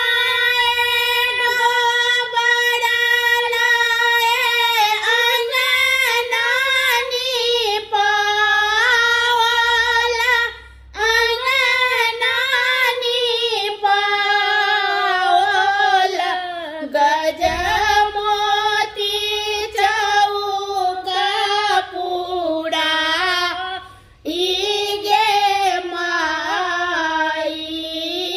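Two women singing a Maithili wedding-ritual song together without instruments, in long drawn-out notes that bend slowly in pitch. They break briefly for breath about eleven and twenty-four seconds in.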